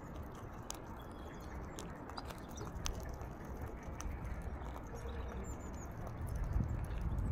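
An Alexandrine parakeet's beak clicking and cracking seeds at a window-sill feeder, a scatter of sharp irregular taps over a low steady rumble. A few faint, thin bird chirps sound in the background.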